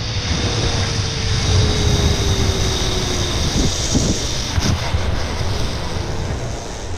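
Zipline trolley running along a steel cable, with heavy wind buffeting on the microphone. A faint whine falls slowly in pitch as the ride slows near the end of the line, fading about three and a half seconds in, followed by a few knocks.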